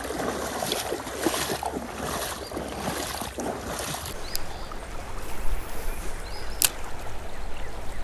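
Wading steps sloshing and splashing through shallow, weedy creek water, about two steps a second for the first half, over the steady sound of the running creek. A single sharp click comes near the end.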